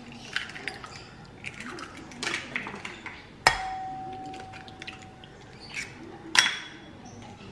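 Eggs being cracked on the rim of a glass mixing bowl: small taps and shell crackles, with one sharp tap about three and a half seconds in that leaves the glass ringing for nearly two seconds, and another sharp tap near the end.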